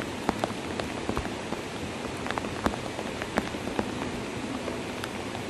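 Steady rush of floodwater flowing over a road, with rain falling and scattered sharp drop ticks throughout.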